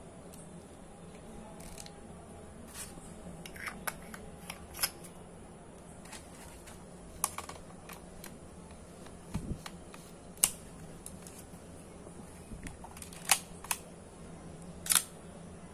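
Nikon FG SLR film camera and its 50 mm lens being handled and worked: a dozen or so separate sharp mechanical clicks, the loudest about ten, thirteen and fifteen seconds in, with a low thump near the middle.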